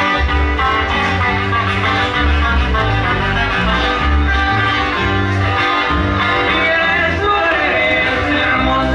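Live regional Mexican dance music from a band, played loud with a strong, pulsing bass line under sustained melody instruments.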